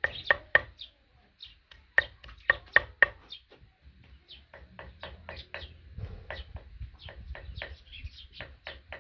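Quick rhythmic knocks of a pestle pounding in a wooden mortar, in two short runs of about four strokes each, stopping about three seconds in. After that, small birds chirp repeatedly over a low rumble.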